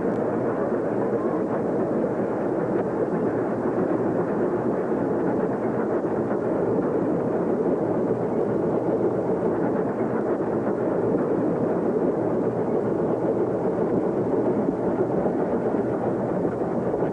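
Steady, even rumble of a steam-hauled train in motion, heard from a carriage running alongside a second steam train on the parallel track, with no separate exhaust beats standing out.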